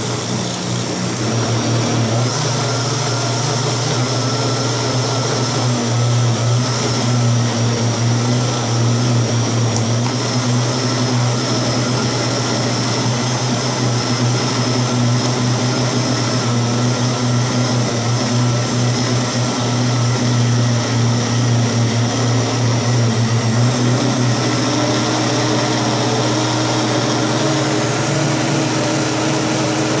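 Electric countertop blender running continuously, its motor working through a thick purée of boiled cassava with milk and butter. The motor's pitch steps up slightly about three-quarters of the way through.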